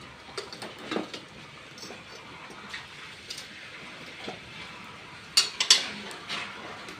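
Kitchen utensils and cookware clinking and knocking: scattered light knocks, then a quick run of louder clinks near the end.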